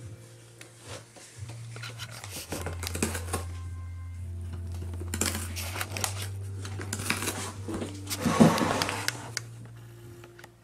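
Cat tearing and chewing at a cardboard box and rustling the crumpled packing paper inside it: scratchy tearing, clicks and crinkling in irregular bursts, loudest about eight seconds in. A steady low hum runs underneath.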